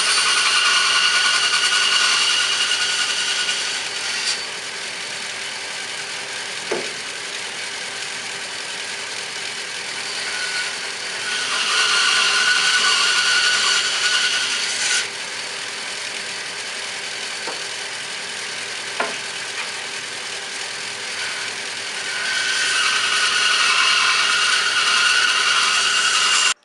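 A power saw running steadily and cutting into wood three times, each cut louder and lasting about four seconds, with a few knocks in between; the sound cuts off abruptly at the end.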